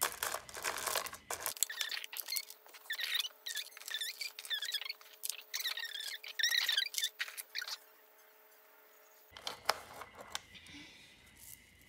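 Plastic bead bracelets clicking and rattling against each other as handfuls are picked up and set into a case's compartments, in a run of short clatters.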